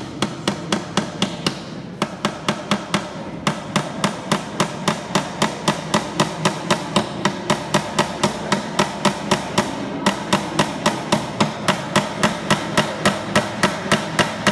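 Small hammer tapping quickly and evenly on a small box, about four strokes a second, as its lid is sealed shut. The strokes stop briefly a few times, about two seconds in and about ten seconds in.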